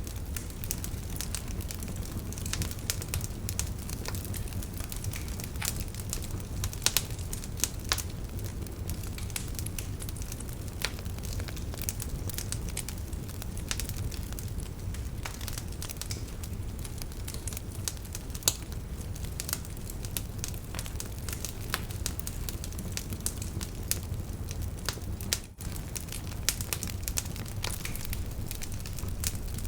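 Wood fire in a fireplace crackling, with frequent sharp, irregular pops over a steady low rumble of flame. There is a momentary dropout near the end.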